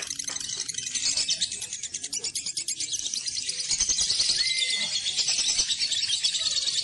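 Lovebird chattering song: a fast, continuous high-pitched trill of rapid notes, growing louder from about four seconds in, with a short whistled note near the middle.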